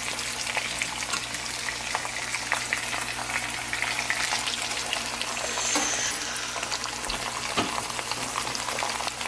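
Pork chops frying in hot oil in a pan: a steady sizzle full of small spitting crackles that starts suddenly.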